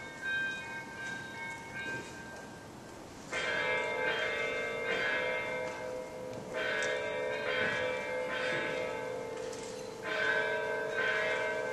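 Liturgical chant: voices holding long, steady chords in three phrases that begin about three seconds apart.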